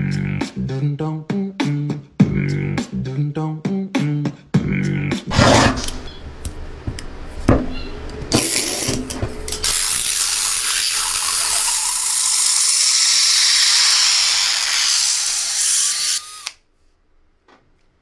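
A beat with vocal sounds plays for about the first eight seconds. Then a cordless drill runs steadily for about eight seconds, giving a loud, even rushing noise, and cuts off suddenly, leaving near silence near the end.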